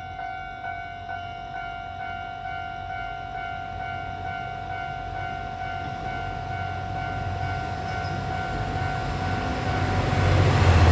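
Railway level-crossing bell ringing steadily, about two rings a second, as a two-car diesel local train approaches; the train's rumble grows louder toward the end.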